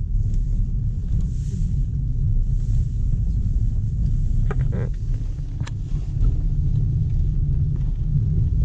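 Small 1.0-litre car driving on a gravel dirt road, heard from inside the cabin: a steady low rumble of tyres on gravel and engine. A brief higher-pitched sound cuts in about halfway through.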